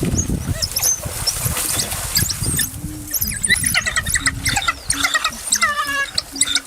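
Rapid high-pitched animal squeaks and chirps, many short calls in quick succession, over a low rumbling noise.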